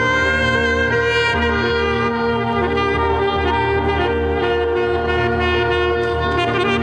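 Free-improvised jazz played by a duo of reed wind instrument and Nord Stage keyboard: the wind instrument holds long notes that bend slightly in pitch, over low sustained keyboard tones.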